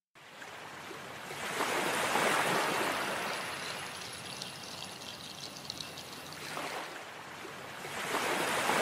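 Sea waves washing over a rocky shore, swelling about two seconds in and again near the end, with a softer hiss of water between the swells.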